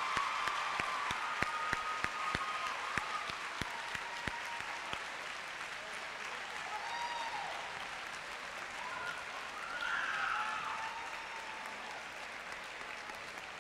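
Audience applauding, with a few voices over it. The clapping is dense at first and thins out after the first few seconds.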